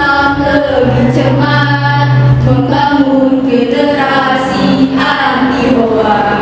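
Girls' voices singing together into microphones, a slow, held melody with gliding, ornamented turns.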